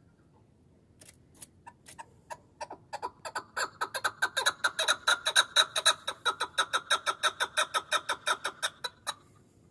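Chukar partridge giving its repeated chuck call. The clucking notes start slowly about a second in, speed up and grow louder to about five a second, then stop abruptly near the end.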